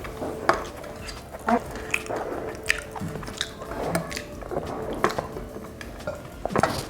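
Close-up chewing and biting of food, with sharp mouth smacks and clicks at irregular intervals.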